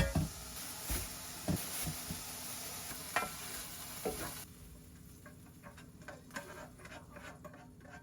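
Food sizzling in a frying pan while a utensil stirs it and knocks against the pan several times. The sizzle drops away about halfway through, leaving lighter scraping and clicking.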